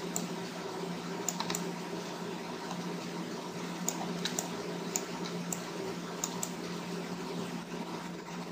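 Scattered, irregular clicks of a computer mouse and keyboard, about a dozen, over a steady low electrical hum and hiss.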